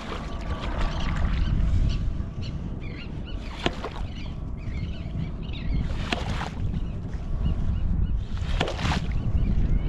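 Hand-operated ghost shrimp pump being worked in wet sand: three short, hissing, sucking strokes about two and a half seconds apart, over a steady low rumble of wind and surf.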